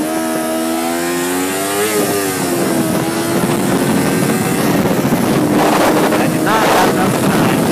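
Sport motorcycle engine revving up as the bike accelerates, with a gear change about two seconds in, then pulling steadily at a higher speed. Heavy wind noise on the helmet-free microphone rises with the speed.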